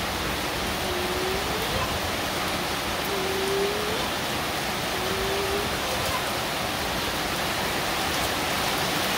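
Heavy rain falling steadily, hissing on concrete and puddled water.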